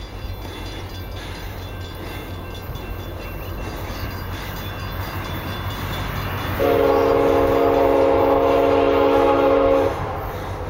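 Norfolk Southern diesel freight locomotive's air horn sounding one long multi-note chord for about three seconds, starting about six and a half seconds in, over a steady low rumble.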